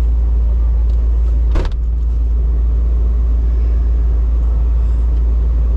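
Pickup truck driving over rough ground, a steady low rumble from the engine and road heard from aboard. A single sharp knock comes about one and a half seconds in.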